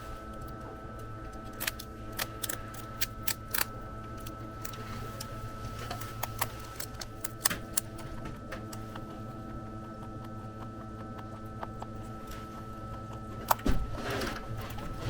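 Rabbit crunching a dried celery stick: scattered, irregular crisp clicks over a steady mechanical hum, with a louder knock near the end.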